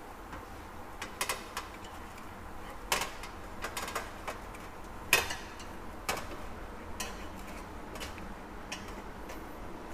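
Chopsticks clicking and scraping against a stainless steel tray and wire rack as pieces of roasting pork belly are turned over halfway through cooking: a dozen or so irregular light clinks, the loudest about five seconds in.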